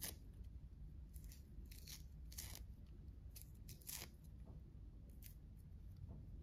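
Tangerine peel and white pith being torn off by hand: faint, short tearing rips, roughly one a second, over a low steady hum.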